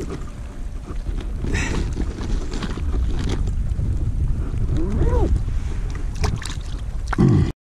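Wind buffeting the microphone over lapping water around a float tube, with scattered clicks and rustles of gear being handled. The sound cuts off suddenly near the end.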